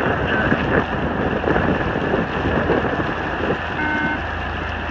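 Strong, gusty wind buffeting the microphone, with a brief steady tone about four seconds in.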